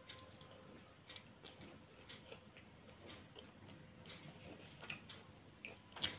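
Faint chewing and mouth sounds of a person eating by hand, with scattered small clicks and one sharper, louder click about six seconds in.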